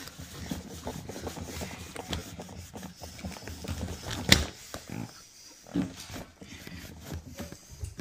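Cloth rubbing over the plastic body of a Henry vacuum cleaner, with soft handling noises from its hose and wand being moved and a single sharp knock about four seconds in. The vacuum is not running.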